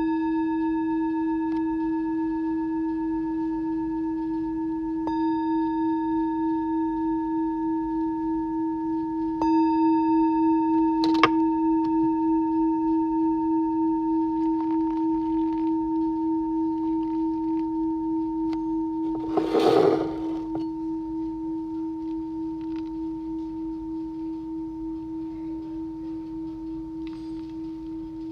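Singing bowl ringing with a low, wavering hum and higher overtones, struck again about 5 and 9 seconds in, then slowly fading. A sharp click comes about 11 seconds in, and a short noisy burst about 20 seconds in.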